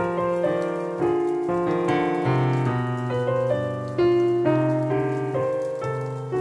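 Background piano music: a gentle melody over sustained chords, each note struck and then fading.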